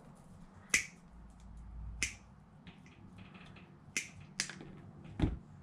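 Side cutters snipping at a brushless motor's lead wire: about five sharp snaps spread over several seconds, the last one heavier.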